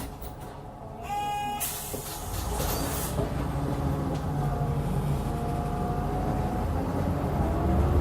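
2012 Hyundai Aerotown city bus: a short electronic beep about a second in, then a loud burst of compressed-air hiss, then the engine rumbling louder as the bus pulls away, with a whine from the drivetrain rising underneath.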